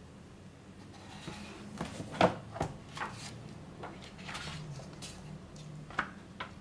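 Pages of a large book being turned and flipped by hand: paper rustling with several sharp flaps and taps, the loudest a little over two seconds in and two more near the end.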